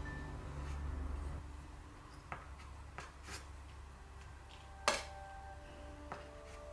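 A few short metal clicks and taps from an offset spatula working buttercream onto a cake on a turntable, one sharp clink about five seconds in much louder than the rest.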